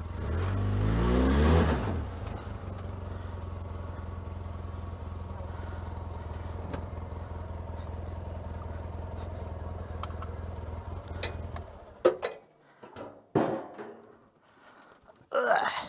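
The Polaris RZR 800 side-by-side's twin-cylinder engine revs briefly, then drops back to a steady idle. About twelve seconds in, the engine cuts off, and a few short knocks follow.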